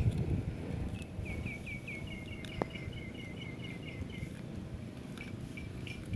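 A small bird calling a quick run of short chirps, about four or five a second for about three seconds, then fainter single notes, over a steady low rumble of outdoor background noise.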